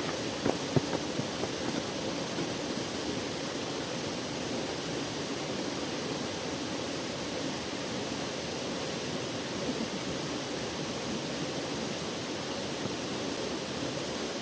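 Waterfall rushing in a steady, even wash of water noise, with a few brief clicks in the first two seconds.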